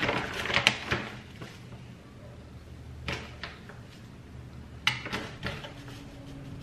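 A plastic pouch rustling and crinkling as it is opened and a spoon dips into it: a burst of crinkles in the first second, then a few short crackles about three and five seconds in.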